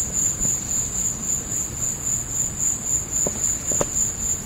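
Crickets chirping in a steady high chorus, pulsing about three times a second.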